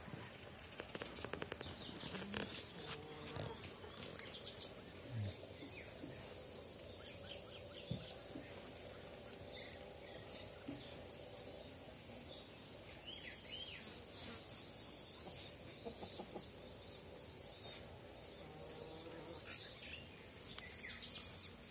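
Faint birdsong: repeated quick, high chirps, thickest in the second half. A spell of rustling and clicking comes in the first few seconds.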